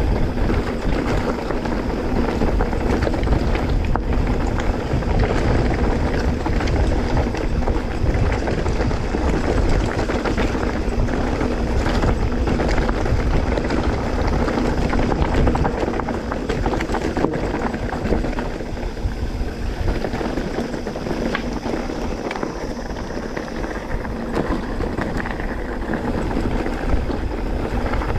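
Wind rushing over the camera microphone on a mountain-bike descent, steady and loud, with scattered knocks and rattles from the bike over rough trail. It eases a little after about the middle.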